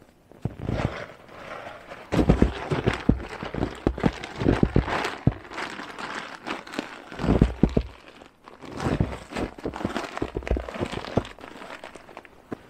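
Boots crunching and shuffling in snow in irregular clusters of steps, with a plastic bag rustling as it is handled.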